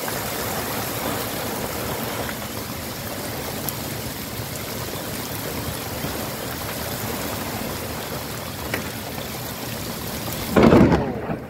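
Hail and heavy rain pelting down on a road and driveway, a dense steady hiss. Near the end a sudden, much louder thunderclap from a lightning strike close by.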